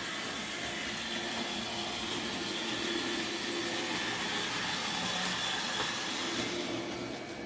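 N-scale model railbus running on the layout track: a steady whir from its small motor and wheels on the rails, a little louder in the middle, dropping away near the end.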